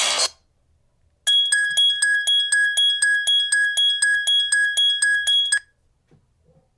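Sony Ericsson Xperia X10 mini pro ringtone: a bright, bell-like ring pulsing about four times a second over a steady high tone, starting about a second in and stopping after roughly four seconds.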